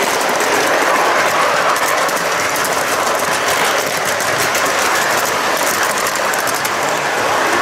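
Tinplate model train running on metal track, heard from a wagon at the tail of the train: a steady metallic rattle of wheels on the rails, with rapid fine clicking.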